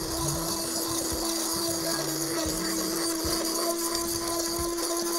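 Handheld immersion blender running steadily with a constant motor pitch, puréeing cooked vegetables and cooking liquid in a steel pot into gravy.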